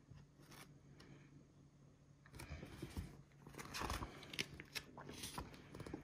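Glossy catalogue pages being turned and handled: faint, irregular rustling and crinkling of paper, starting about two seconds in.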